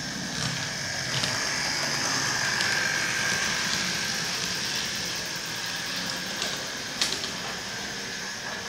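Hornby Class 50 OO-gauge model diesel running along layout track: a steady motor whine over a rolling wheel rumble, with a few light clicks along the way. It grows a little louder and then eases off toward the end.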